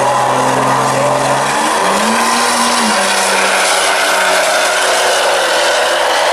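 Two pickup trucks launching in a drag race. A steady engine drone at the line gives way to a rise in pitch about a second and a half in as they accelerate away, over a dense, loud wash of engine noise.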